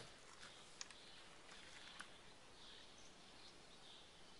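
Near silence, broken by a sharp click at the start and two lighter clicks about one and two seconds in, as a plastic squeeze bottle of oil is picked up and handled over the cup. Faint high chirping sits in the background.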